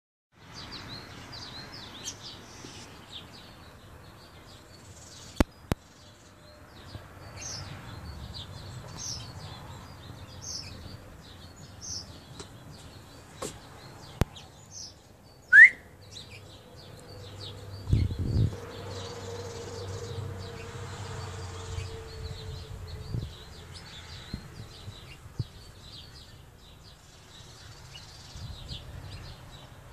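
Birds chirping: a run of short, faint, high chirps repeating throughout, with one much louder upward-sweeping chirp about halfway through. A low rumble and a steady hum come in just after the loud chirp and fade before the last few seconds.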